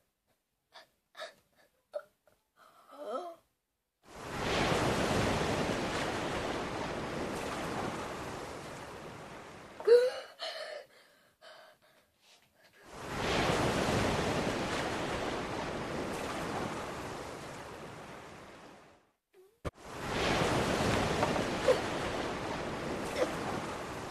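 Three long rushes of even hiss-like noise, each starting suddenly and fading slowly over about five or six seconds, with a short sharp gasp between the first two.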